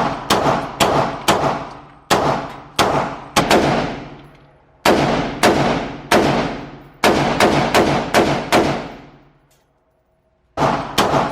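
Firearm shots at a gun range, fired in strings of several rounds about half a second apart, each shot followed by a long echoing decay. Near the end there is a pause of over a second before a few more shots.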